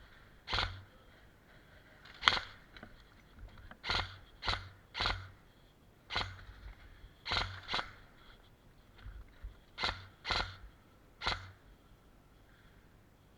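Airsoft gun firing single shots, about ten short cracks at an uneven pace, some in quick pairs.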